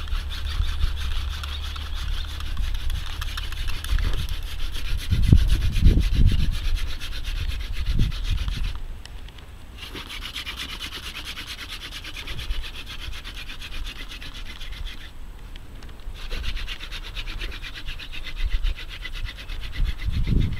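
Hand drill in use: a hazel spindle spun between the palms, its tip grinding on a wooden hearth board in a steady rasping rub as friction builds up an ember. The rubbing stops briefly twice, about nine and fifteen seconds in, as the hands go back up the spindle. Low thumps on the microphone come in the first half.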